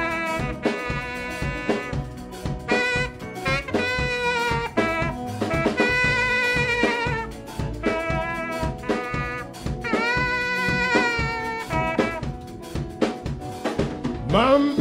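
Live band music: a saxophone plays a melodic solo line over a steady drum-kit beat and electric bass.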